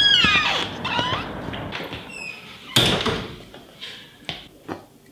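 A door creaking open on a squeaky hinge, with a wavering falling squeal, then shutting with a thud about three seconds in.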